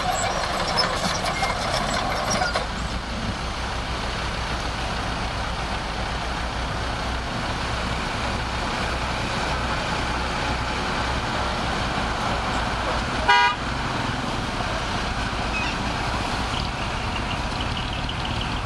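Heavy earthmoving machinery's diesel engine running steadily, with a higher engine note that drops away about two and a half seconds in. About thirteen seconds in there is one short horn toot.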